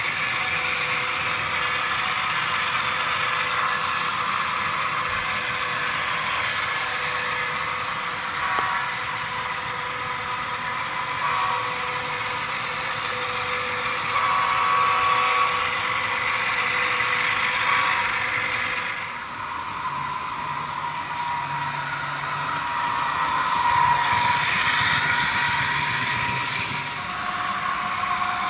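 Diesel locomotive engine sound from an ESU LokSound 5 sound decoder, played through the small speakers of an HO scale GE ES44AC model as it runs along the track. The sound is steady, with a deeper tone joining about two-thirds of the way through.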